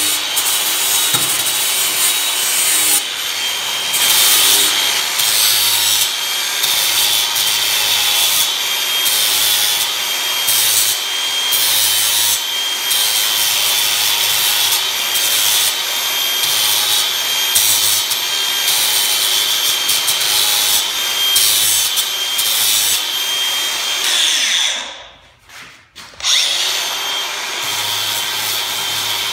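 Angle grinder with a carving disc shaping oak wood, its motor whining steadily and dipping in pitch as the disc bites, with the grinding noise coming in repeated strokes. About 25 seconds in it is switched off and winds down, then it is started again a second or so later and its whine rises back to speed.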